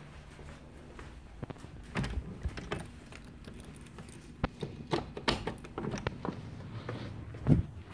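Clicks, rattles and knocks of a glass-paned French door being unlatched and opened, with a louder thump near the end.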